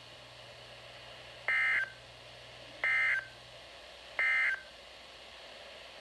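NOAA Weather Radio's SAME end-of-message code played through a Midland weather alert radio's speaker: three short bursts of buzzy digital data tones, evenly spaced just over a second apart, marking the end of the alert broadcast.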